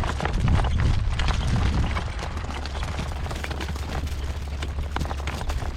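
Gusty wind buffeting the microphone, strongest in the first two seconds, with a horse's hooves clip-clopping as it trots pulling a cart.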